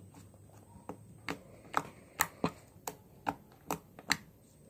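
Slime being kneaded and squeezed by hand, with lotion worked in, making a run of sharp, irregular wet clicks and pops, about ten, starting about a second in.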